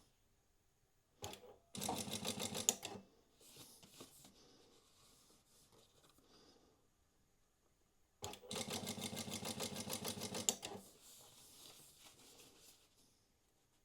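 Prosew PS-1903SX industrial walking foot sewing machine stitching a programmed multi-segment seam. It makes a short run of about a second, then a longer run of about two and a half seconds, each a fast, even patter of stitches starting after a click, with quieter handling noises in between.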